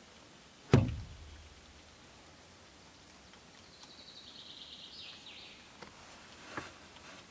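A single sharp, loud thump under a second in, with a short low ring after it. A few seconds later comes a quick high trill of a small bird, stepping down in pitch, then a faint click.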